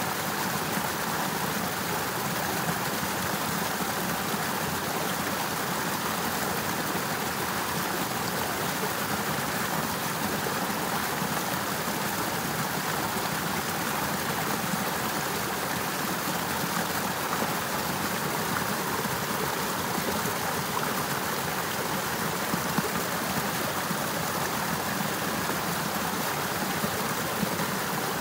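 Partly frozen river running steadily: an even, unbroken rush of flowing water, with a few brief sharper ticks near the end.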